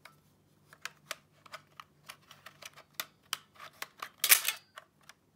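Sharp plastic clicks and rattles from handling a toy-grade drone remote controller and folding out its phone-holder arms, with a louder scraping rub about four seconds in.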